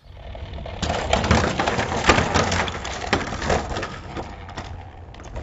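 Toy monster truck's wheels crunching and rattling over rough ground: dense crackling with a low rumble, loudest from about one to four seconds in, then fading.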